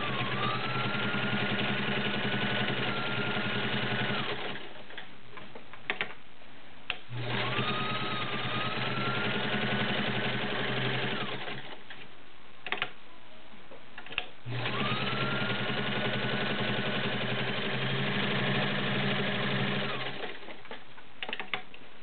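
Kenmore 1601 sewing machine's 1.2-amp motor stitching through two layers of garment leather, in three runs of several seconds each. The motor's whine rises in pitch as each run starts. Short pauses between the runs carry a few sharp clicks.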